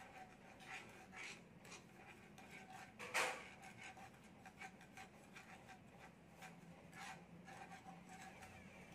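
A thin metal stick stirring and scraping brown sugar around a nonstick frying pan as the sugar starts to melt: faint, irregular scratching, with one louder scrape about three seconds in.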